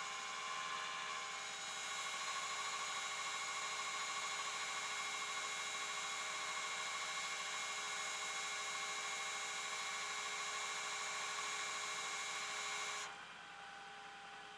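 Rollback tow truck's hydraulic winch pulling a car up the tilted flatbed: a steady mechanical whine that steps up slightly about a second and a half in and cuts off suddenly near the end as the winch stops.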